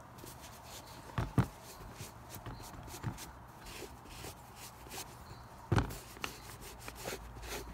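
Cloth rag rubbing over a leather Keen Targhee III hiking boot, wiping off excess mink oil, with soft scuffs and handling noises. Two thumps come about a second in and another near six seconds.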